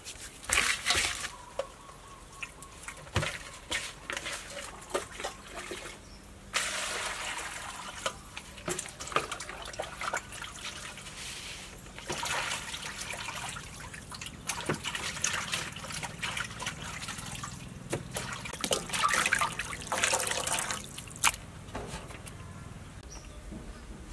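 Hands washing raw chicken pieces in water in a stainless steel bowl: wet splashing and sloshing in irregular bursts, with a few sharp knocks against the metal.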